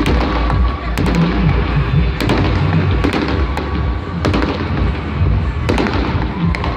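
Aerial fireworks bursting: sharp bangs at irregular intervals and crackling over a continuous low rumble, with music playing underneath.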